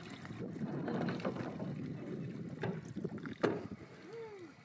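Small rowboat being rowed: water swishing from the oar strokes and along the hull, with a few sharp knocks, the loudest about three and a half seconds in. Near the end comes a brief call that rises and falls in pitch.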